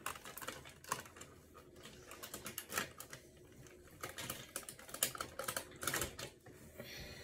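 Cooked chicken being picked off the bone, a run of irregular small clicks and crackles as the meat and skin are pulled away from the carcass.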